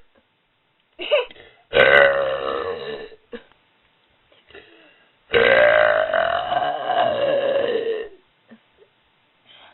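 Two long, loud deliberate burps from a person. The first runs from about two to three seconds in, after a brief sound just before it. The second is longer, nearly three seconds, starting about halfway through, with a pitch that rises and then falls.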